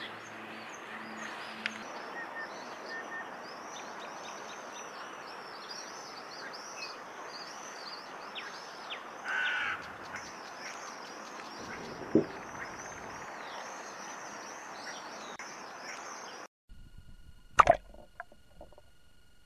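Lakeside ambience: many birds chirping rapidly over a steady outdoor hiss, with a louder call about halfway through and a sharp knock a little later. Near the end the sound cuts off suddenly to a faint electronic whine and a loud knock.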